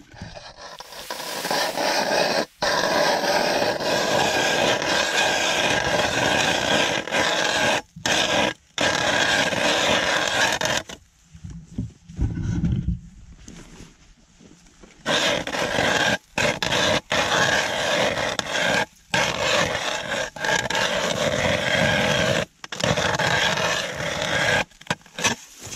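Ice auger blades grinding and scraping as they bore a fishing hole through the ice, in two long stretches with a pause of a few seconds about halfway through.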